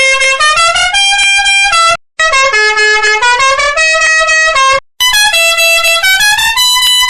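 Bus horn sound effect playing a short tune of stepped notes, repeated in three altered versions. Each version lasts about two and a half seconds, with a brief gap around two seconds in and another around five seconds in.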